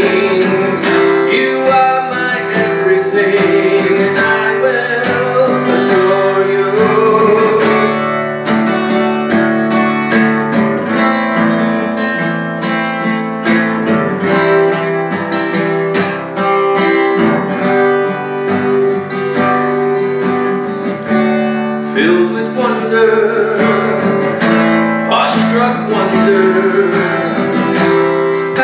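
A man singing a worship song while strumming a steel-string acoustic guitar. The voice drops out for a stretch in the middle, leaving the guitar strumming alone, then comes back near the end.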